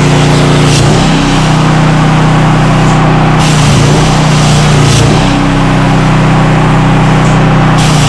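CNC plasma table cutting steel: a loud, steady hum under the hiss of the plasma torch, with the hiss dropping out and coming back a few times.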